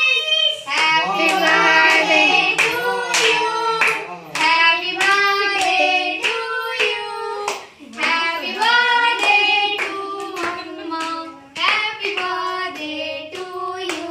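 Children's voices singing a song together while hands clap along in time, about two claps a second. Both fade near the end.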